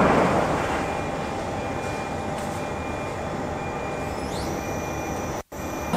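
CNC lathe spindle and chuck turning, a steady mechanical hum. It is loudest at the start and dies away over the first second. A little past four seconds in, a high whine rises and then holds.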